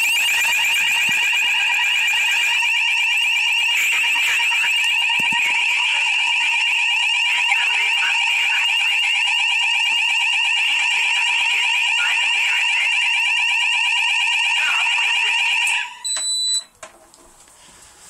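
Wall-mounted Banshee fire alarm sounder in full alarm, a loud fast-warbling electronic tone, set off by test smoke sprayed into an Orbis smoke detector. It cuts off suddenly near the end and is followed by a short high beep.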